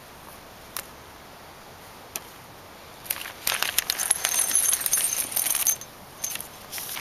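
A few faint clicks, then, about halfway in, a cluster of small steel bolts, flat washers, shims and lock washers clinking and jingling against one another for about three seconds as they are tipped out of their plastic hardware bag.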